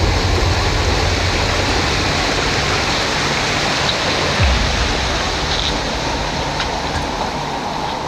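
Rushing water from a stream or waterfall: a loud, steady hiss with a low rumble underneath.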